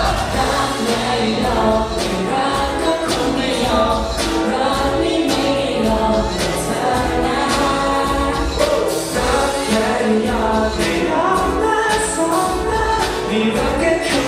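Pop song played loud through a concert sound system, with several voices singing together over a steady beat.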